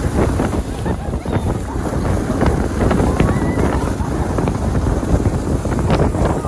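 Wind buffeting the microphone over the rush and scrape of a snow tube sliding down a snowy slope, with frequent small bumps and scrapes.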